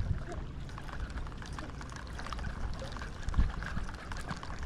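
Small waves lapping and trickling at the lake's edge, with wind rumbling on the microphone and one heavier bump about three and a half seconds in.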